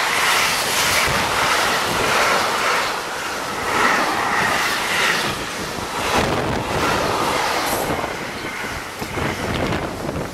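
Freight wagons of a container train passing close at speed: steady rolling rumble with a rhythmic clatter of wheels over the rail joints, and some wheel squeal from the tight curve.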